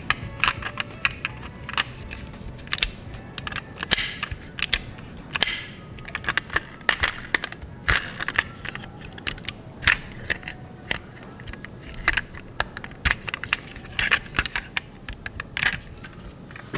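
A die-cast model car being handled: irregular clicks, taps and knocks as it is turned over in the hands, its wheels spun and its parts moved. There are two short rushing noises about four and five and a half seconds in.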